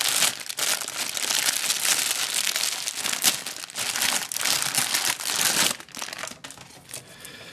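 Clear plastic bag crinkling as it is handled and opened to pull out a bundle of modular power-supply cables. The crinkling stops about six seconds in, leaving a few light clicks of the cables being handled.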